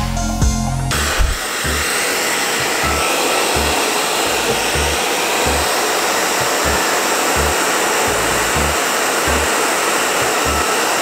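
Hand-held hair dryer switched on about a second in and running steadily, blowing hot air, with irregular low rumbles from the airflow. Electronic background music stops as the dryer starts.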